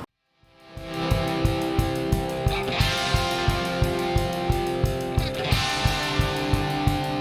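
Background rock music with electric guitar and a steady drum beat of about three hits a second, fading in after a brief moment of silence.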